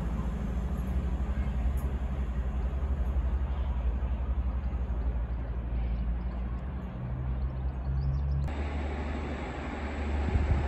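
Diesel multiple unit trains with a steady low rumble: first a CrossCountry Voyager diesel unit approaching, with a faint engine hum. About eight and a half seconds in the sound changes abruptly to a louder, fuller rumble from an EMR Regional Sprinter diesel unit.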